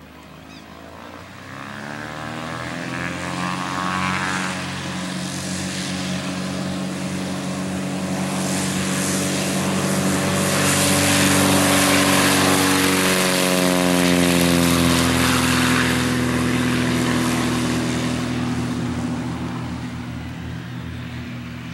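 Van's RV-10 single-engine propeller aircraft at take-off power during its take-off roll and climb-out: the engine and propeller grow louder as it runs past, drop in pitch as it passes about halfway through, then fade as it climbs away.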